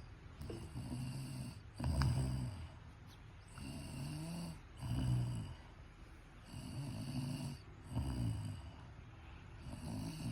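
A woman snoring in her sleep: low, rasping snores in a steady rhythm, about one every one and a half seconds, alternating louder and softer.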